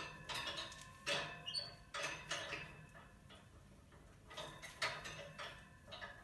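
Parrot playing with hanging wooden and bead toys in a wire cage: irregular clicks, knocks and clinks, a few a second, some with a brief ring. A short high squeak comes about a second and a half in.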